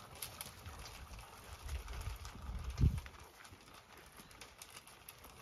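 Zwartbles sheep feeding from a metal trough: a run of small clicks and knocks as they eat and their muzzles hit the trough, with a dull thump just before the middle.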